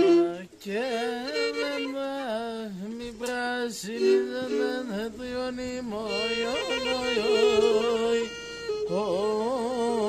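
Pontic lyra (kemenche) being bowed: a continuous, wavering, ornamented folk melody played on two strings at once in parallel, with a short drop in loudness about eight seconds in.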